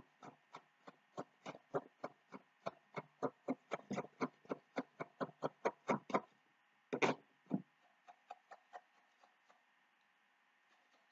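A utensil clicking against the inside of a glass pitcher of hot chocolate in a quick, even rhythm of about three strokes a second. It stops about six seconds in, and two louder knocks follow about a second later, then a few faint taps.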